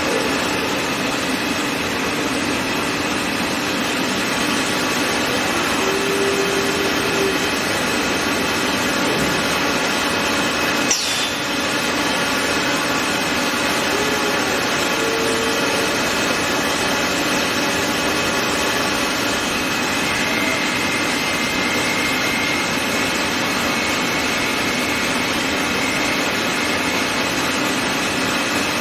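Steady machine-shop din of CNC vertical lathes running, with faint steady whining tones through it and a single sharp click about eleven seconds in.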